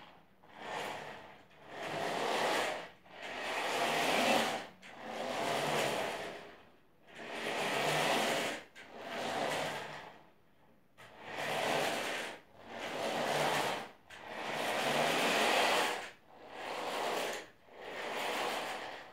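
Small DC gear motors of an Arduino-built Bluetooth robot car running in repeated short bursts of one to two seconds, about a dozen times, with a rushing whir as the car drives and turns on a wooden floor.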